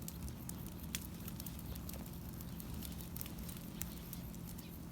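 Bonfire crackling, with irregular sharp pops and snaps over a low steady rumble.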